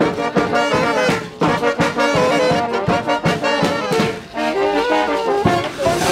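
Brass band playing a melody in held, changing notes over a steady bass drum beat, with a brief break about four seconds in.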